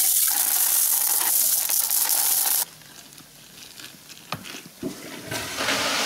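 Toilet flushing, a steady rush of water that cuts off abruptly about two and a half seconds in; after a quieter stretch with a couple of sharp clicks, the rush of flushing water comes back for the last second or so.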